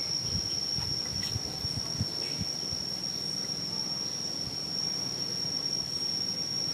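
Steady, high-pitched insect drone holding one even tone, with a few soft low thumps in the first two seconds or so.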